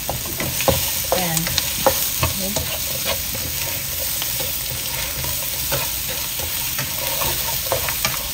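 Shrimp sizzling in hot oil in a nonstick wok, stirred and tossed with a spatula: a steady sizzle broken by frequent scrapes and knocks of the spatula against the pan.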